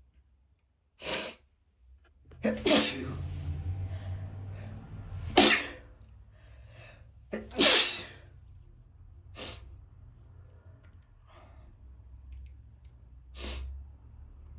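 A man sneezing several times in a row: sharp, sudden bursts, the two loudest about halfway through.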